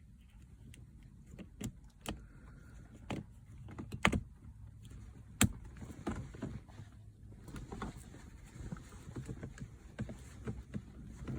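Scattered light clicks and knocks from hand work on a B9 Audi's gear shift selector, the trim parts being handled and fitted, with two sharper clicks about four and five and a half seconds in.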